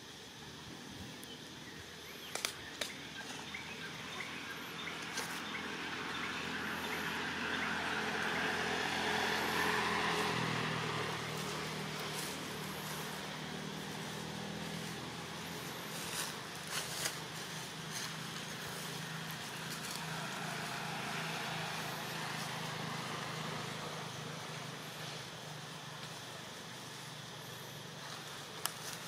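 Outdoor ambience with a motor vehicle's engine noise swelling to a peak about ten seconds in and then slowly fading, a low engine hum lingering. A few short clicks stand out.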